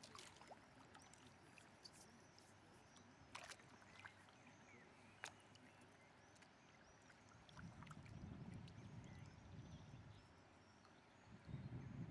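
Faint river ambience from a canoe: low water sloshing from paddling, swelling about two-thirds of the way through and again near the end, with a few light knocks and small high chirps, like birds, scattered throughout.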